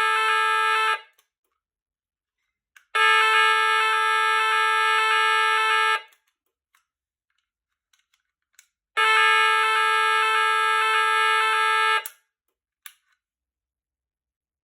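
SFC PAJ30150A1 fire alarm sounder, driven by a Nugelec Type 4 alarm panel in test mode, sounding its NF S 32-001 evacuation tone. The tone runs in blocks of about three seconds with equal silences between: one sounding stops about a second in, and two more follow, each lasting about three seconds.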